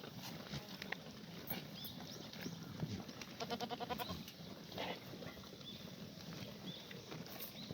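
Black goats bleating: one quavering, pulsing bleat about three and a half seconds in, with scattered short clicks and knocks around it.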